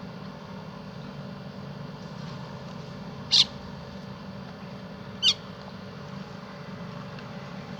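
A bird gives two short, sharp, high calls about two seconds apart, over a steady low background hum.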